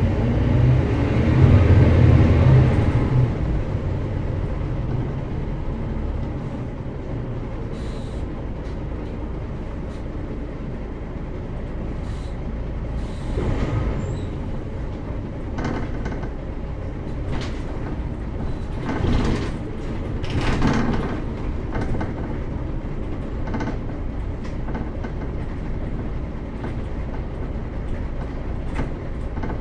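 Mercedes-Benz O405GN² articulated city bus driving, heard from on board: the engine pulls hard with a deep note for the first few seconds, then settles into steady running. Brief knocks and hisses stand out several times around the middle.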